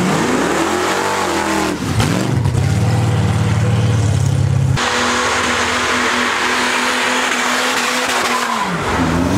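A rusty 1950s Chevrolet's engine revs and then pulls away at high revs. About five seconds in, the sound switches to a black sedan doing a burnout: tyres screeching while the engine is held at steady high revs, dropping and picking up again near the end.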